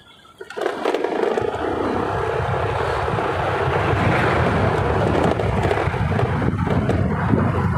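Motor scooter riding along: wind rushing over the microphone with the engine running underneath. The noise comes in suddenly about half a second in and then stays steady.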